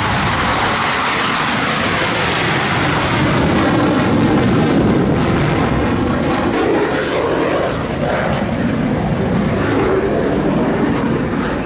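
Military aircraft flying over the airshow, a loud, steady engine rush that swells about four seconds in and eases slightly near the end.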